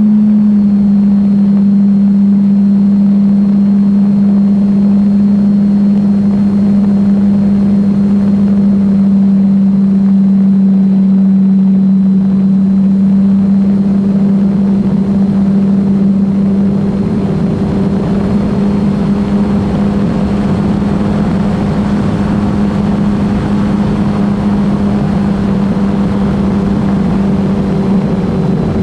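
Brushless electric motor and propeller of an E-flite Clipped Wing Cub RC plane heard from its onboard camera in flight: a steady, loud drone with air rushing past. It eases slightly a bit over halfway through as the plane comes down low over the sand.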